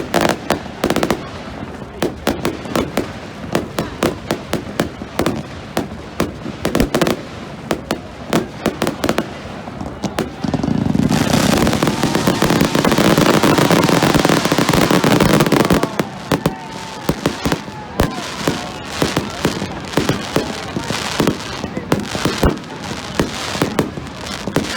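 Fireworks going off: a steady run of sharp bangs and crackles, with a louder, dense barrage from about eleven to sixteen seconds in and a few brief whistles rising and falling around it.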